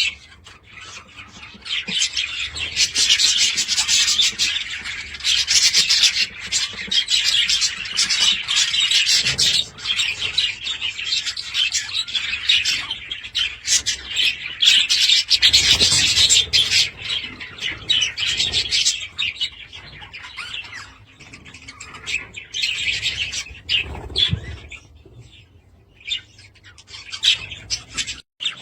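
Budgerigars chattering and warbling in a dense stream of fast chirps, in bouts with brief pauses, quieter near the end.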